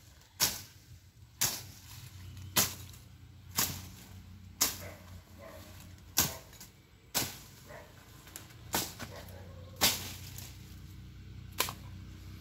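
Thick, overgrown grass and weeds being slashed by hand with a blade: about ten sharp swishing cuts, roughly one a second at an uneven pace.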